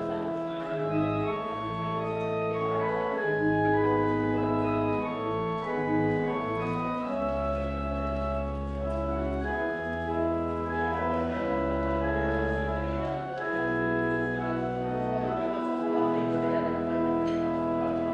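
Church organ playing a postlude in slow, sustained chords, with deep pedal bass notes coming in about seven seconds in.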